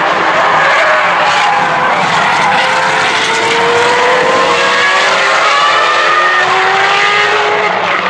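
Several open-wheel racing cars, among them former Formula 1 cars, running close together at high revs through a corner. From about three seconds in, their engine notes climb together as they accelerate away.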